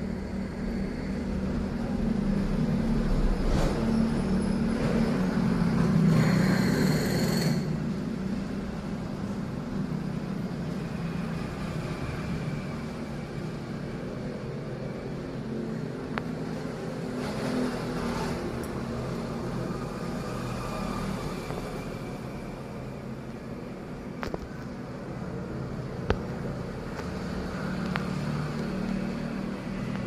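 A steady low mechanical hum, like an engine running, with a louder rushing swell a few seconds in and another around the middle. A few faint, brief high chirps come and go.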